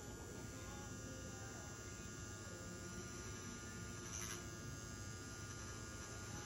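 Rotary tattoo pen running with a faint, steady electric buzz as its needle works into the skin.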